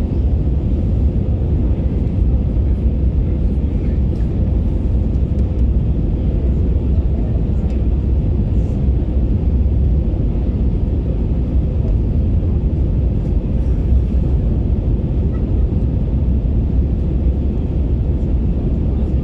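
Airbus A321neo cabin noise during approach: a steady low rumble of the engines and rushing air heard from inside the cabin, with a faint steady hum.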